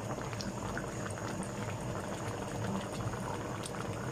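Coconut-milk fish stew boiling in a pot: steady bubbling with many small pops as the broth reduces and thickens.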